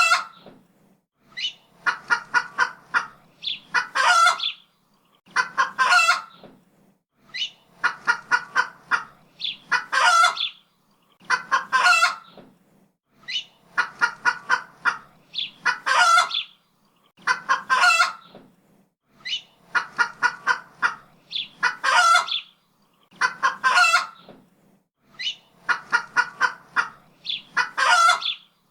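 Chicken clucking: a run of short clucks followed by longer, louder calls. The same sequence repeats about every six seconds with short silences between.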